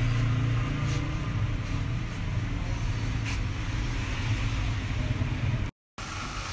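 Steady low engine-like rumble with a faint hiss over it. It drops out abruptly near the end and comes back quieter.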